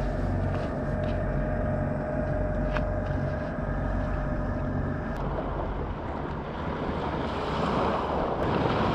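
A steady engine drone, a low hum with a thin higher tone over it, that cuts off suddenly about five seconds in. After it stops, wind buffets the microphone and grows louder near the end.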